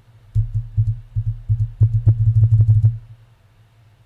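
Computer keyboard keys tapped in a quick run of about fifteen sharp clicks with dull thumps, coming faster about two seconds in and stopping about three seconds in.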